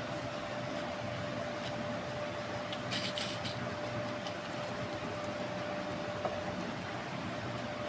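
Steady machine-like hum with a thin steady whine, with a brief scrape of plastic about three seconds in as a pipe and fitting are worked on the heating sockets of a pipe-fusion welder, and a single small click near the end.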